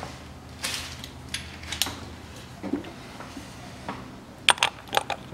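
Metal clinks of a ratchet and socket being handled and fitted onto the rear differential's flange nut, with a quick run of sharp metallic clicks near the end.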